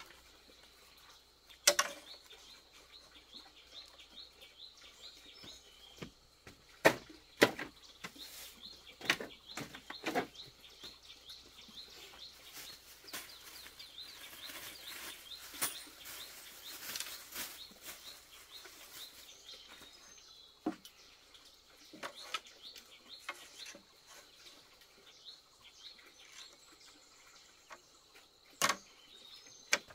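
Birds chirping in a quick, continuous high trill, with sharp knocks and taps every few seconds standing out above it.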